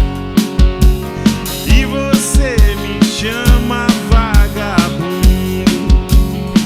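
A band playing a song: drum kit with steady kick drum and snare strokes under bass and a melodic lead line that slides between notes.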